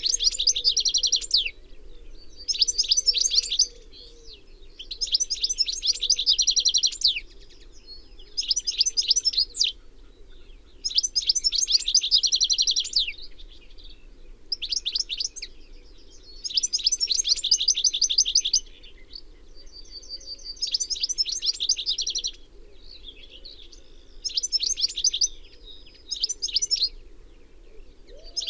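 European goldfinch (Carduelis carduelis) singing: about a dozen high-pitched phrases of rapid twittering notes, each one to two seconds long, with short pauses between.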